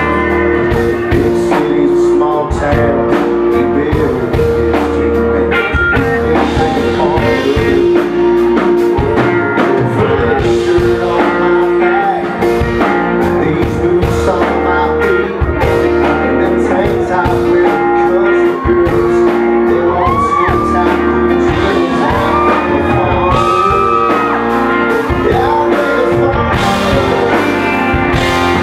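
Live country band playing loudly: strummed acoustic guitar, electric guitar and bass guitar, with singing.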